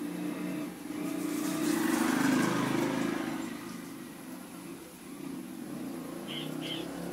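A motor vehicle's engine going by, swelling to its loudest about two seconds in and then fading away.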